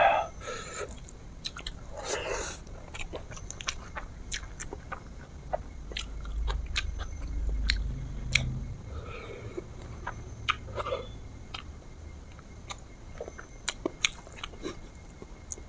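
A person chewing and biting food close to the microphone, with scattered small crunches and wet mouth clicks.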